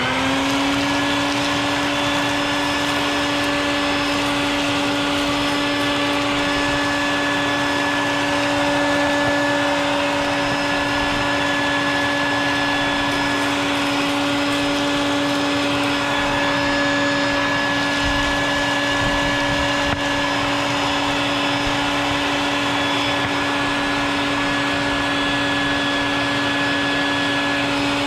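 Wet/dry shop vacuum running with a steady motor whine, its hose nozzle sucking dust and chipped concrete out of a crack in a concrete step. The motor is just reaching full speed at the start, then holds one pitch.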